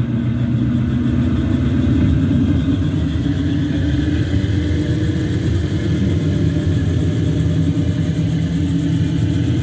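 Onboard sound system of a battery-electric 1.5-inch-scale GP9 ride-on locomotive playing a steady simulated diesel engine rumble through its speaker.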